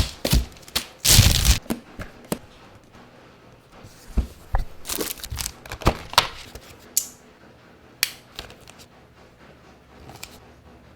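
Close-up handling of packaging and hard objects: irregular knocks and clicks mixed with a few longer rustling, scraping sounds, the loudest scrape about a second in.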